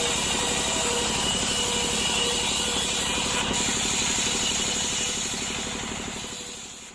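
A woodworking machine running steadily with a fast, even low throb and a high whine, fading out near the end.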